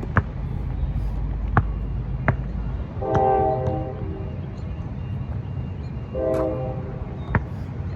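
A horn-like pitched tone sounds twice, each blast just under a second long and about three seconds apart, over low wind rumble on the microphone. A few sharp knocks are scattered through it.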